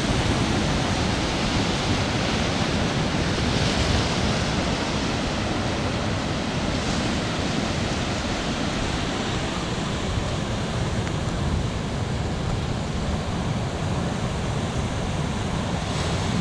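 Ocean surf washing steadily on the rocky shore, with wind on the microphone.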